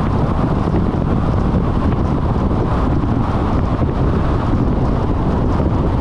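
Steady road and wind noise of a vehicle driving along an expressway at speed: an even, loud noise with most of its weight in the low end and no distinct events.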